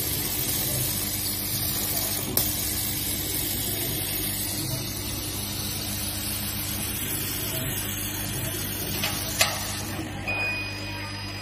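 CO2 laser cutting machine running while it cuts acrylic: a steady hiss over a low hum, with a couple of sharp clicks. A thin high tone sounds near the end.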